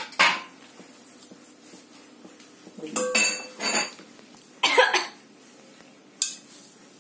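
A few short clunks and scrapes of a large steel bowl, some with a brief metallic ring, as a ball of rested dough is handled and lifted out of it.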